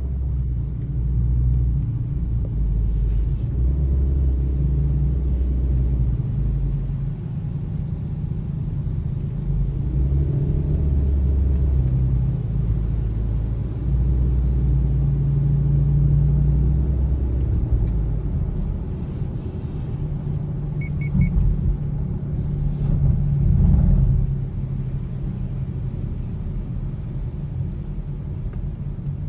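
Low, steady road rumble of a 2020 Subaru Ascent being driven, heard from inside the cabin, swelling and easing a little. A brief triple beep sounds about two-thirds of the way through.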